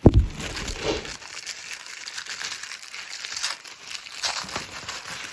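Packaging being torn open and crinkled by hand, an irregular run of crackles and rustles after a low bump at the start.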